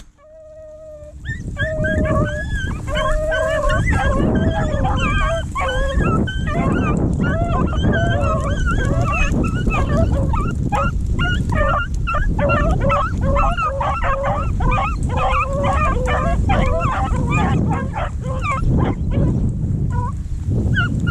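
A pack of beagles baying and yipping in full cry on a rabbit's trail, many voices overlapping, starting about a second and a half in. A steady low rumble runs underneath.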